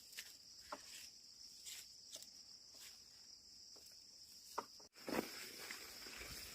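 Faint, steady high-pitched insect chirring, with a few soft scattered taps.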